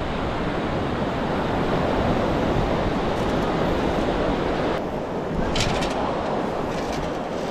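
Ocean surf washing onto a beach, a steady rushing noise, with wind on the microphone.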